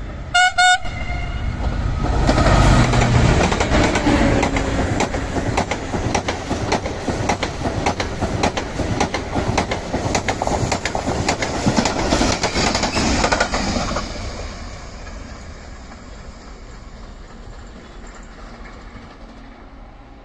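A locomotive horn gives two short blasts. Then a Talgo passenger train rushes past at speed, its wheels clattering over the rails in a quick rhythm of about four clacks a second. The noise fades away as the train draws off over the last several seconds.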